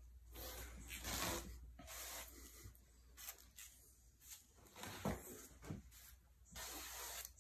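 Several short hissing bursts from an insecticide sprayer's metal wand as it is sprayed into the cracks and seams of a wooden dresser drawer, with a single knock about five seconds in.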